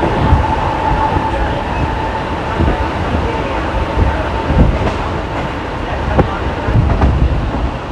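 Mumbai suburban electric local train running at speed, heard from aboard: a steady rumble with a few knocks from the wheels, and a thin steady whine that fades out about halfway through.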